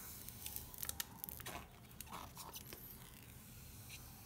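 Faint handling noise from a phone being turned over in the hand: scattered small clicks and crinkles.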